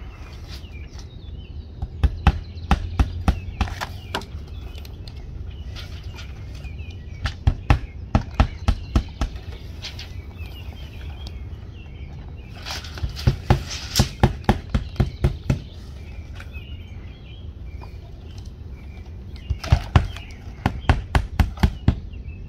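Hammer driving nails through vinyl siding into the wall, in four bursts of several quick blows each. Birds chirp faintly in the background over a low steady outdoor rumble.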